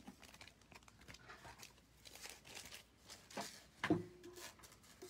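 Faint rustling and crinkling of plastic packaging being handled, with one sharper knock about four seconds in.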